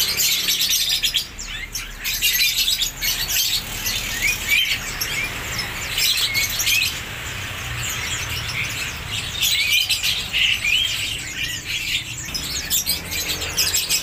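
Many caged songbirds chirping and twittering at once, a dense tangle of short, high, overlapping calls.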